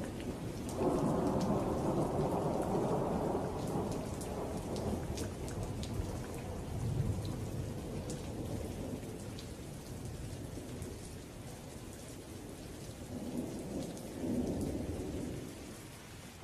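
Thunderstorm ambience: steady rain with a roll of thunder about a second in and another near the end, fading out at the close.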